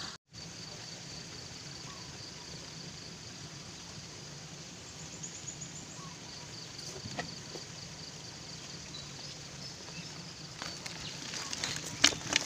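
Steady high-pitched insect chirring in an open grassy field. Near the end, a few sharp knocks and rattles as the catch is handled in a plastic bucket.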